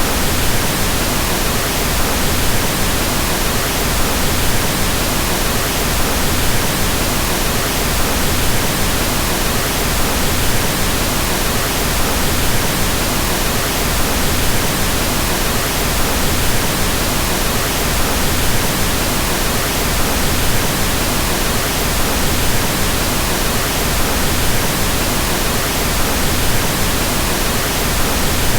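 Steady, unchanging pink noise: an even hiss across all frequencies, with more energy in the lows than white noise and falling off gradually toward the highs.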